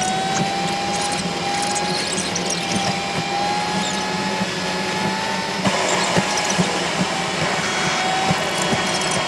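A steady mechanical whine that drifts slightly in pitch, over a low hum with scattered clicks; a hiss joins about two-thirds of the way in.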